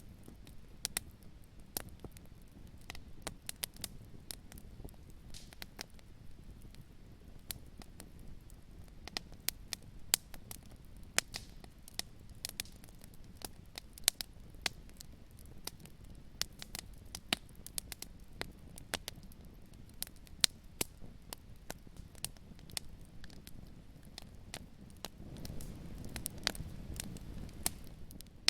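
Wood fire in a fireplace crackling: irregular sharp pops and snaps over a low, steady rumble, which swells slightly near the end.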